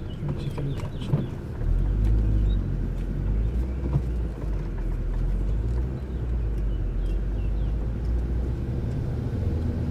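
Car driving, heard from inside the cabin: a steady low engine and road rumble that grows louder about one and a half seconds in, with scattered light clicks over it.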